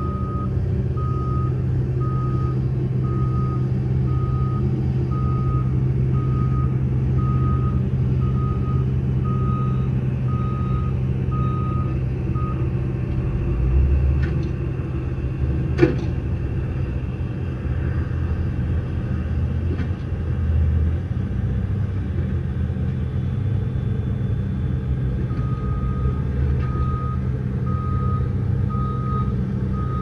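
JCB 3CX backhoe loader's diesel engine running steadily as the machine backs up. Its reversing alarm beeps about once a second through the first twelve seconds or so, stops, and starts again near the end. A single sharp knock comes about halfway through.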